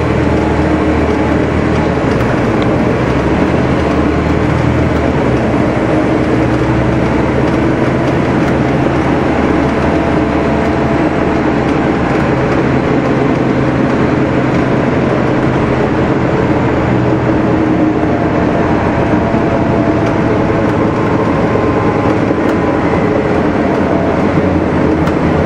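Gillig Phantom transit bus's Cummins ISL diesel engine running at a steady note, a loud low hum with a constant rumble and no revving or gear changes.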